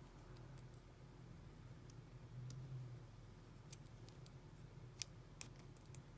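Lock picking an American 700 padlock by hand: faint, scattered light clicks as the pick works the pins against the tension wrench, about ten of them in the second half, over a faint low hum.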